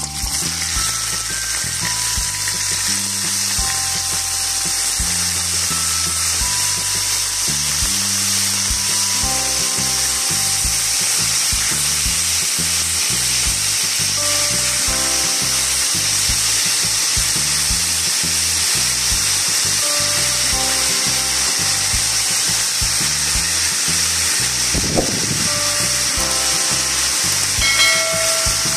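Marinated beef strips sizzling steadily in hot oil in a pan over high heat.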